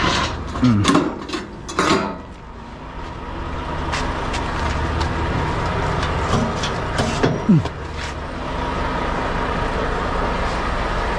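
Metal clanks and clicks from a semi-trailer's landing-gear crank handle, then a steady rushing noise with a low rumble and a few scattered metallic clicks.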